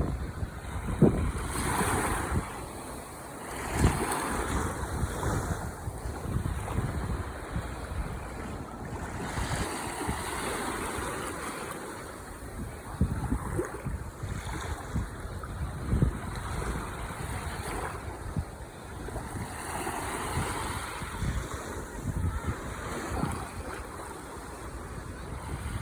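Ocean waves breaking and washing ashore, the surf swelling and ebbing every few seconds, with low rumbles of wind buffeting the microphone.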